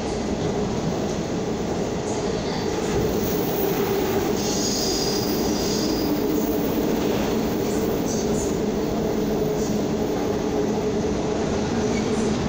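Seoul Subway Line 2 train running at speed, heard from inside the passenger car: a steady rumble of wheels on rail with a low motor hum. A brief high wheel squeal comes about four to six seconds in.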